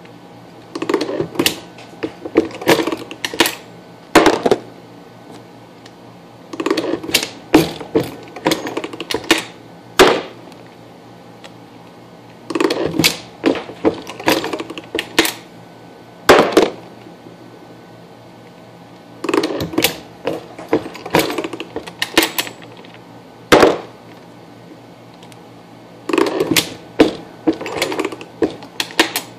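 Star Universal progressive reloading press being cycled round after round: clusters of metallic clicks and clunks as cases, primers and bullets are fed and the shell plate is indexed. The clusters come five times, about every six to seven seconds.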